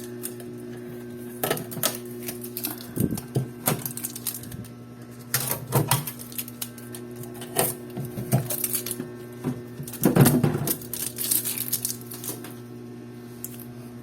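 Irregular clicks, knocks and crinkles of packaging being handled and pulled off a new refrigerator, with a louder cluster about ten seconds in, over a steady low hum.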